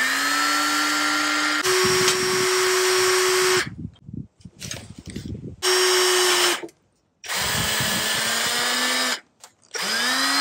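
Power drill turning a combination drill-and-tap bit into aluminium. The motor whines up to speed, then runs at a steady pitch in several bursts with short pauses between them; one run is at a slower speed.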